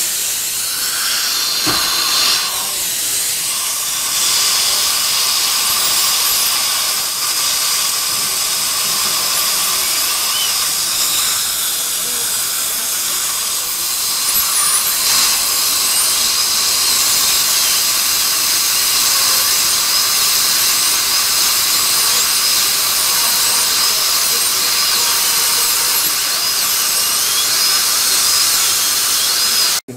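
High-speed dental handpiece (dental drill) running with its bur against a four-unit dental bridge, sectioning the bridge so it can come off without damaging the teeth under it. It is a steady high whine over a spray hiss, and it cuts off suddenly near the end.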